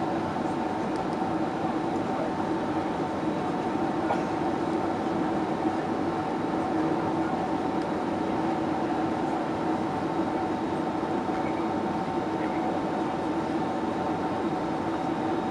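Steady cabin drone of a Boeing 767-336ER heard from inside the passenger cabin: the hum of its Rolls-Royce RB211 engines mixed with the rush of airflow. Two even droning pitches sit over the noise with no change in power and no thump.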